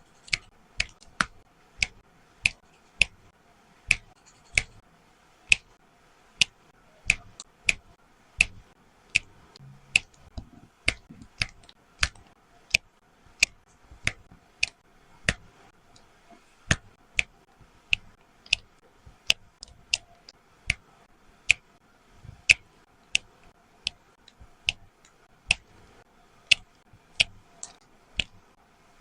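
Diamond painting: a drill pen pressing resin diamonds one by one onto the sticky canvas, each placement giving a sharp little pop. The pops come at an uneven pace of about one or two a second.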